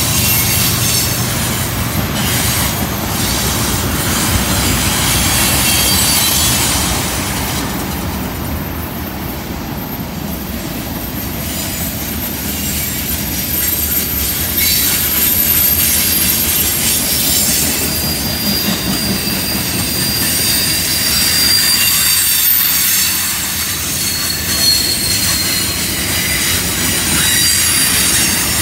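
Freight cars of a Canadian National train rolling past on a curve: a steady rumble of steel wheels on rail with thin, high-pitched wheel squeal from the flanges grinding through the curve, strongest in the second half.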